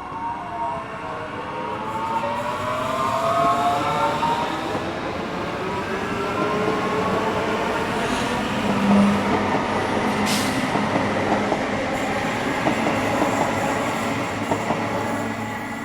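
A train running past: a continuous rush of wheel and rail noise that builds to its loudest about nine seconds in and eases off near the end. Gliding motor-whine tones shift in pitch during the first few seconds.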